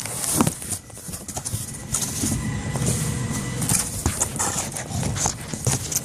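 Irregular knocks, clicks and rustling: computer hardware being handled and set down as a store server is swapped out.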